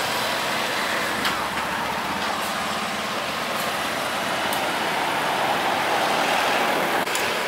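Steady street traffic noise, swelling slightly about six seconds in as a vehicle passes, with a few faint light clicks over it.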